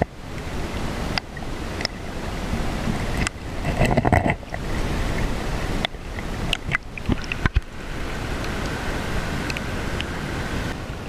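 Shallow river water rushing around a camera held just below the surface, with scattered sharp clicks and knocks. A louder swirl of water comes about four seconds in.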